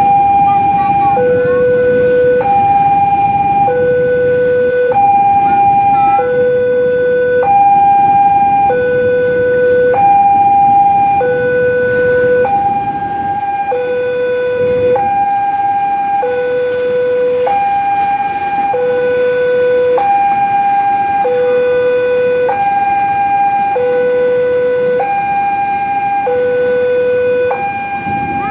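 Railway level-crossing warning alarm: an electronic two-tone signal alternating between a high and a low note, each held about a second, repeating steadily. Underneath it a container freight train rumbles past over the crossing.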